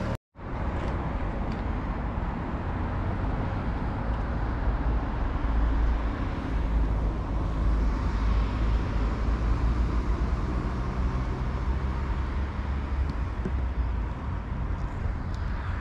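Steady outdoor background noise: a deep, fluctuating rumble under an even hiss, with no distinct events, cutting in after a brief gap at the very start.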